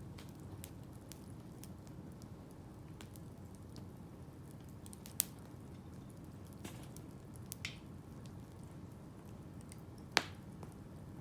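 Wood campfire burning: scattered small crackles over a steady low rush, with two sharp, loud pops, about five seconds in and near the end, and a short hiss just before eight seconds.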